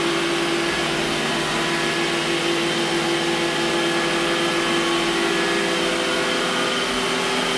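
An iRobot Roomba j7+ robot vacuum running on a hard floor: the steady whir of its suction fan and brushes, with a constant motor hum.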